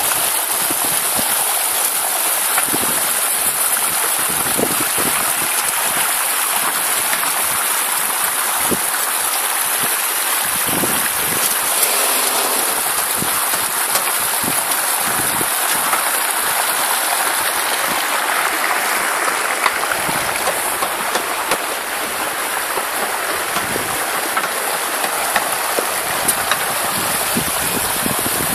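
Water running steadily down a rock cascade into a garden pond: a constant, even rushing.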